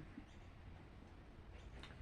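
Near silence: room tone, with a couple of faint ticks.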